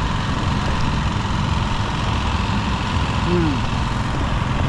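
Busy outdoor street-market ambience: a steady low rumble, like idling engines, under a dense crowd din, with a brief voice rising out of it about three seconds in.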